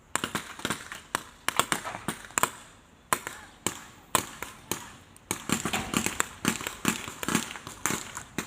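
Airsoft guns firing in quick, irregular shots, sharp snaps that come thicker in the second half.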